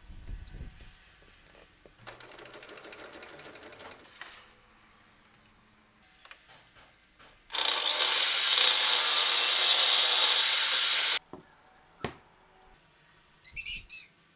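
A power tool cutting wood, loud and even for about three and a half seconds in the middle, starting and stopping abruptly. Before it there is a quieter rasping stretch, and a few knocks follow it.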